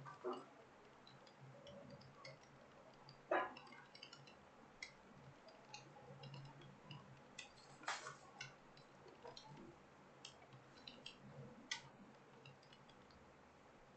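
Faint, irregular clicks of computer keyboard keys being typed on, a few of them louder, over a low steady hum.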